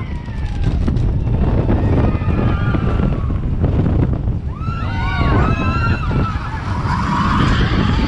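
Seven Dwarfs Mine Train roller coaster in motion: wind rushing over the microphone over the steady rumble of the train on the track, with a few sharp clicks early on. Riders' voices call out about five seconds in.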